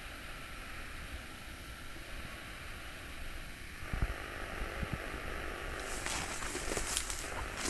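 Steady low wind rumble on the microphone. About halfway in come a couple of low thumps, and near the end irregular crackling rustles of footsteps through leafy woodland undergrowth.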